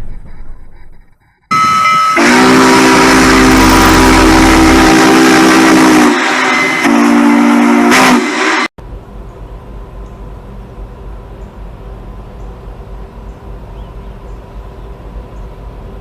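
The horn on a BNSF EMD SD70ACe diesel locomotive sounds a loud, steady multi-note chord. It gives a long blast of about four seconds, then after a brief dip a shorter blast of about a second and a half. The horn cuts off abruptly, and the train's steady low rumble follows.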